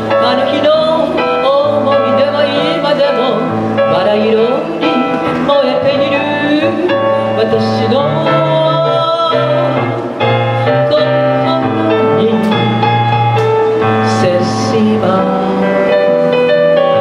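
A woman singing a chanson into a handheld microphone over instrumental accompaniment, her voice gliding and holding notes over a steady bass line.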